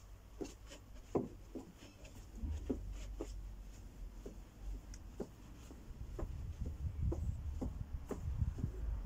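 Trainers tapping and scuffing on a foam exercise mat and wooden decking during mountain climbers: light, irregular taps, with a low rumble underneath from about two seconds in.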